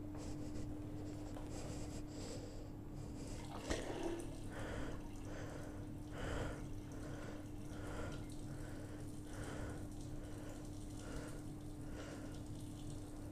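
A person breathing close to the microphone in quick, rhythmic puffs, about two a second from a few seconds in, over a steady low hum.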